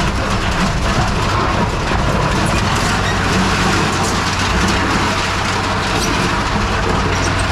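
Scrap-metal baler running: a steady, loud machine hum with scattered clicks and metal crackling.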